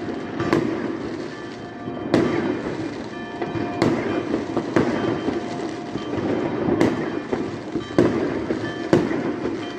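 Fireworks going off across a city: a continuous rumble and crackle of many distant explosions, with about seven sharper, nearer bangs a second or two apart.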